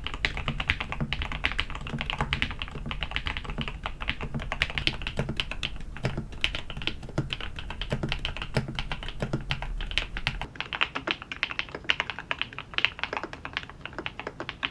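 Continuous fast typing on a newly built QK75 mechanical keyboard: a dense, irregular run of keystroke clacks as a typing sound test. A faint low hum underneath drops out about two-thirds of the way through.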